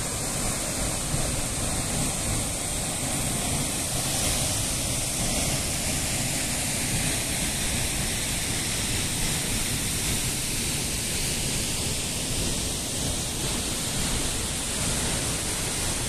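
Waterfall and the rocky stream below it rushing: a steady, unbroken wash of falling and running water.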